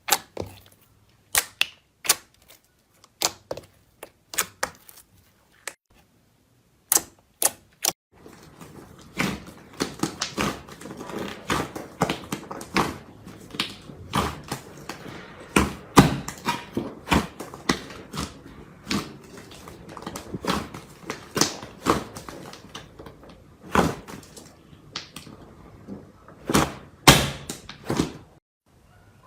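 Slime being pressed and poked, making sharp clicks and pops. For about the first eight seconds the clicks come singly, one or two a second; after that comes a denser run of crackling and popping.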